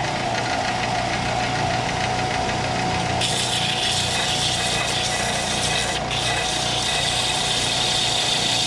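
Belt sander motor running steadily with a constant hum. From about three seconds in, a black plastic lamp-socket cap is pressed against the sanding belt and turned, adding a higher grinding rasp as its edge is ground down, with a short break near six seconds.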